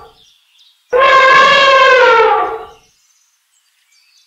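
Elephant trumpeting: one loud call about two seconds long, starting about a second in, its pitch falling slightly toward the end.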